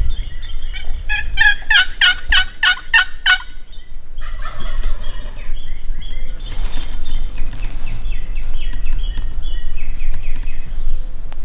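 Rio Grande wild turkey gobbling: one loud, rapid rattling gobble about a second in, followed by softer, broken calling.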